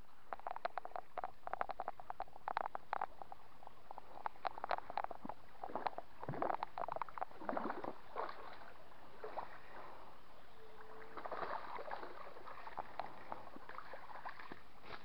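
A hooked fish splashing at the surface of a shallow creek as it is pulled in on a fishing rod, with crackling of dry leaves and gravel underfoot.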